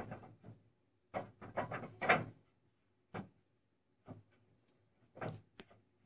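Clay roof tiles knocking and scraping against each other as they are lifted and shifted by hand: a handful of short clatters, with a busier run of them between about one and two and a half seconds in.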